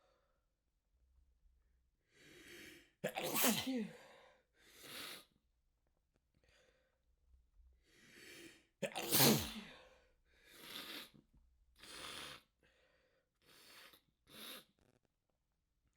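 A person's sneeze fit, brought on with chhinkni (sneezing herb) and manual inducing: two loud sneezes about six seconds apart, with weaker breaths and smaller sneezy sounds between and after them.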